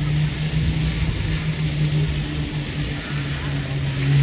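A fountain's tall water jet spraying and splashing onto paving, a steady hiss, over the low hum of a vehicle engine that rises in pitch near the end as it speeds up.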